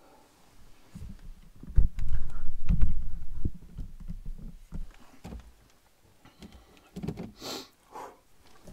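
Low thuds and rubbing as a hand handles a camera on its mount, with clothing rustle, louder in the first half. Near the end comes a short sharp sniff.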